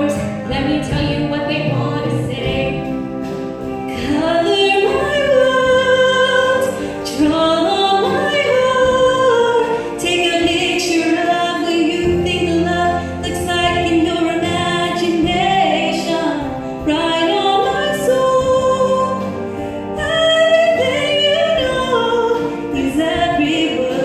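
Female show choir soloists singing into microphones, two voices trading and holding sustained sung lines.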